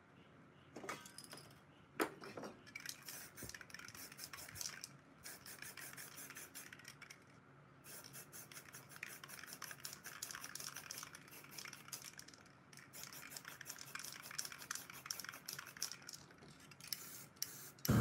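Aerosol spray-paint can spraying black paint in rapid short hissing bursts, in several runs with brief pauses between them. A single knock comes about two seconds in.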